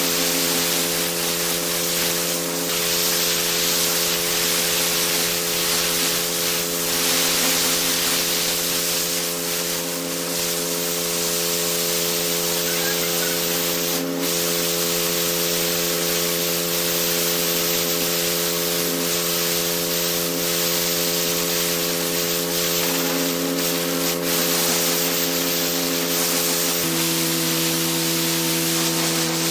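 Pressure washer running steadily with its high-pressure water jet hissing as it blasts the block paving. The machine's note shifts near the end.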